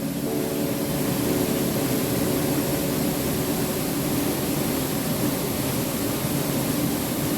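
A steady, even rushing noise, with faint held tones beneath it.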